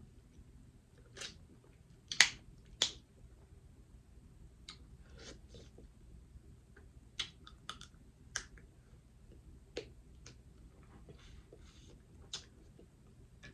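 Close-up eating sounds from a seafood boil: scattered sharp clicks and cracks of shells being handled and broken, with quieter mouth sounds between. The two loudest cracks come close together about two to three seconds in.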